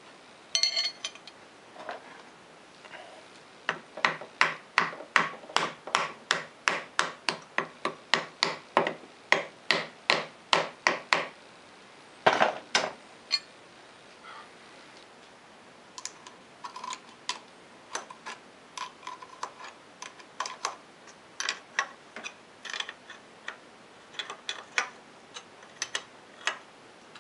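Sharp metal-on-metal clicks and taps as hold-down clamps and parallels are seated and tightened in a metal shaper's vise: a steady run of about three clicks a second for several seconds, a short cluster, then scattered clicks.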